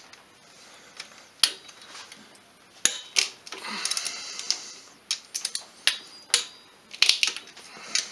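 Torque wrench ratcheting in short strokes on a cylinder head bolt, taking it round the final quarter turn of the tightening sequence. The sharp metal clicks come irregularly: single clicks, a rasping run about three seconds in, and quick clusters after about five seconds.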